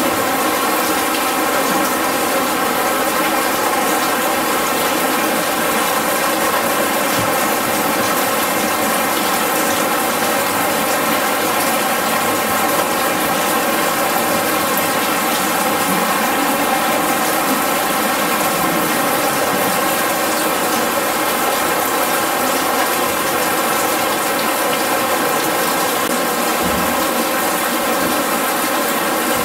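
Artificial rain from an art installation falling steadily, a constant rushing of water that does not change.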